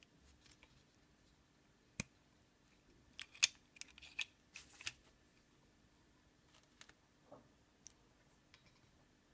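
Hand crimping tool pressing a 6-pin IDC connector shut onto a ribbon cable: a single sharp snap about two seconds in, then a cluster of plastic and metal clicks and clacks as the tool is opened and the crimped connector is taken out. A few light clicks near the end as the connector is handled.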